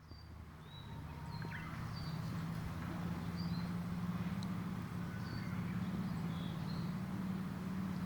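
A steady low buzz, swelling over the first couple of seconds, with short high bird chirps about once a second above it and a faint rush of falling spring water underneath.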